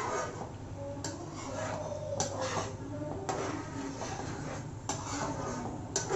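Spoon stirring cubed paneer into a thick butter masala gravy in a cooking pan, knocking against the pan about once a second.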